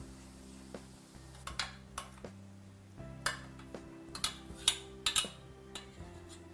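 Metal spoon clinking and scraping against a stainless steel pot as cooked rice is knocked out into a frying pan, a run of sharp metallic clinks with a short ring from about a second and a half in to about five seconds. Soft background music plays underneath.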